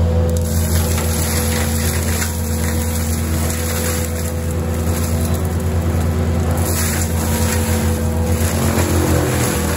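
Tracked skid steer with a forestry mulcher head, its diesel engine running steadily with a deep, even hum as the machine moves up to the brush.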